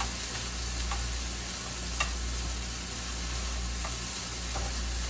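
Chopped steak sizzling steadily in a hot pan, with a few light clicks of a utensil against the pan.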